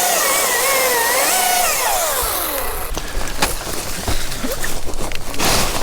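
Chainsaw cutting, its engine pitch wavering under load, then the revs falling away about two and a half seconds in. A run of sharp knocks and cracks follows, the loudest near the end.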